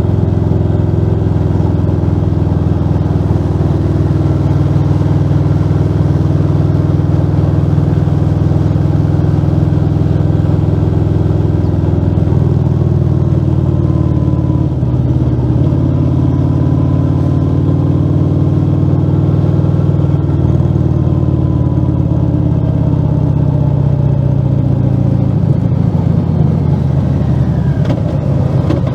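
Harley-Davidson Fat Bob 114's Milwaukee-Eight 114 V-twin heard from the bike while riding, running loud and steady through a Rinehart slip-on exhaust with the dB killer removed. The engine note rises and falls gently, then turns choppier near the end.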